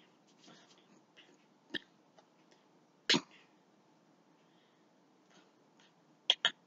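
Quiet body noises from a person signing: faint breathy sounds with a few short, sharp sounds. The loudest comes about three seconds in, and a quick pair near the end.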